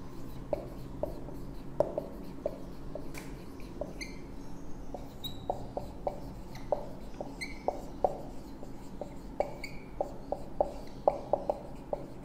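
Marker pen writing on a whiteboard: irregular taps and scratches as letters are stroked on, with short high squeaks here and there.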